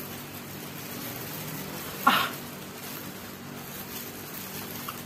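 Quiet eating by hand in plastic gloves over a low steady hum, with one brief sharp noise about two seconds in.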